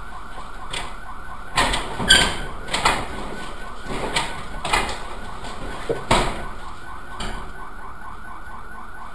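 Wind gusting in short, loud bursts, half a dozen times. Beneath the gusts a fast, steadily repeating warbling tone like a car alarm runs on unchanged.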